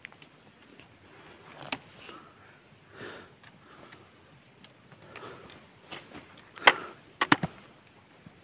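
Footsteps and sharp taps on a stony mountain trail, irregular scrapes and knocks with a cluster of the loudest taps near the end.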